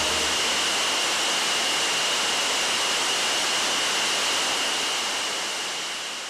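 Waterfall pouring: a steady, even rush of falling water with a thin high tone running through it, fading out near the end.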